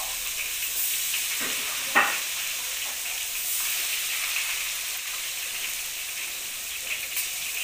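Battered tempe slices deep-frying in a wok of hot oil, a steady sizzle throughout, with a sharp knock about two seconds in.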